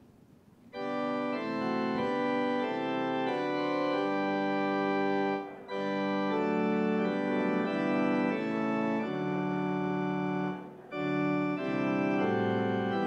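Organ playing slow, held chords in phrases. It comes in just under a second in and pauses briefly twice, around five and a half and eleven seconds in.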